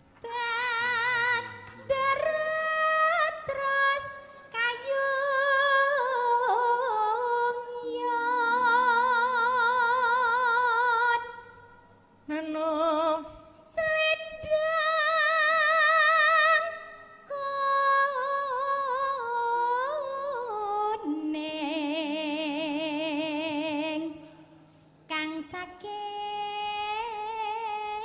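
Javanese pesinden singing a bawa, the free-rhythm solo vocal prelude to a gamelan piece, amplified through a microphone. She holds long notes with a wide vibrato over several phrases, breaking briefly about 12 seconds in and again near 24 seconds.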